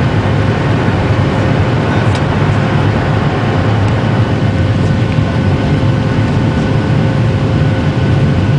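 Jet airliner engines and airflow heard from inside the passenger cabin during takeoff: a loud, steady rush with a deep low rumble and a faint steady hum.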